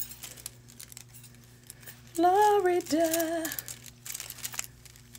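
A woman's voice singing the word "Florida" about two seconds in, drawn out in two held notes, over faint scattered clicks and taps.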